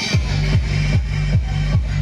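Electronic dance music with a steady kick-drum beat, about two and a half beats a second, over a held bass and synth.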